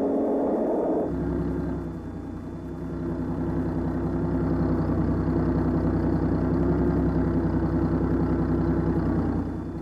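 Score music cuts off about a second in and gives way to a bulldozer's heavy engine running steadily with a fast pulsing beat. It grows louder about three seconds in and drops off near the end.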